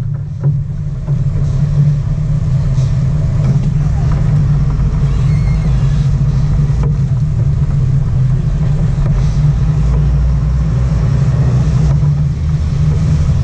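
Sport-fishing boat's engines running at a steady low drone while under way, with the wash of water behind the stern.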